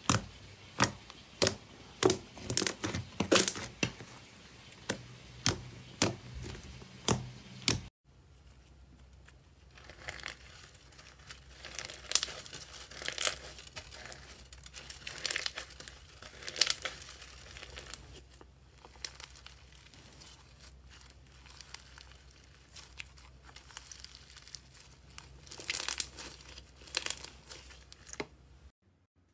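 A hand pressing into smooth slime, giving sharp pops and clicks about twice a second. After a cut about eight seconds in, two hands knead slime mixed with small crunchy bits, giving softer, irregular crackling and crinkling.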